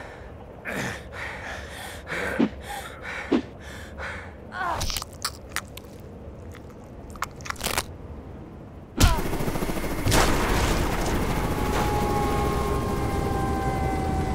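Sound-library effects for a film action scene: a series of separate sharp hits and cracks over the first eight seconds, then a heavy boom about nine seconds in that opens into a steady loud rumble, with falling whining tones near the end.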